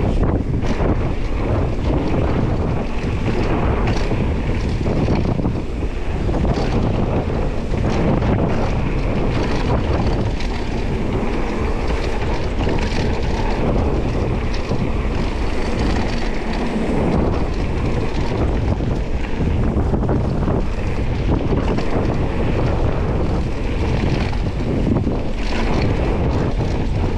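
Specialized Status 160 mountain bike riding down a dirt trail: steady wind noise on the camera microphone, with tyre noise and frequent knocks and rattles from the bike over rough ground.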